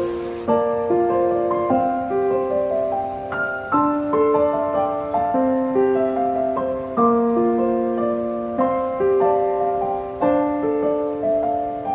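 Background piano music: a slow, gentle run of chords and melody notes.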